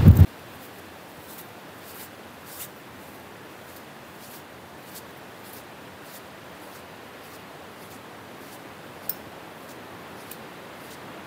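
Wind buffeting the microphone with a low rumble that cuts off suddenly just after the start. It gives way to a faint steady hiss with scattered light ticks, and one sharper tick about nine seconds in.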